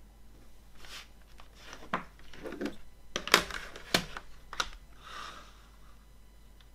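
Plastic CD jewel cases handled on a wooden table: a string of sharp clicks and knocks as the cases are picked up, flipped and set down, then a brief scraping slide as they are pushed across the tabletop near the end.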